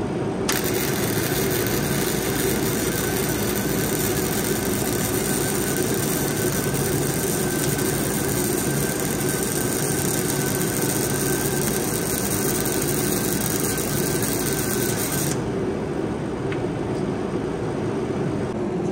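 Wire-feed (MIG) welding arc crackling and hissing steadily as a bead is run. It starts about half a second in and cuts off near the end. Under it an engine runs steadily throughout.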